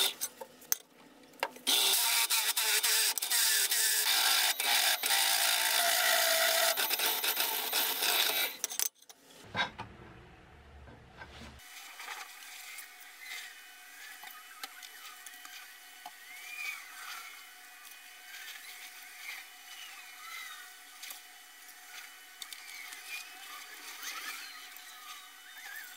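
Bench drill press bit cutting through a steel flat bar, a loud, harsh noise that stops abruptly about a third of the way in. After a short low hum, much quieter short swishes of a paintbrush laying paint on a steel plate.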